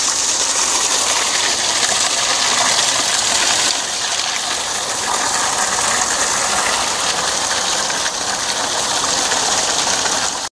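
Spring water running out of a hillside and splashing close by, a steady, loud rushing hiss that dips slightly about four seconds in.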